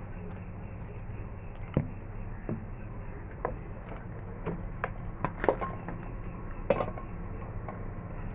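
Clicks and knocks of steel kitchenware being handled, a mixer-grinder jar and bowls picked up and set down, with a few sharper knocks, over a steady low hum.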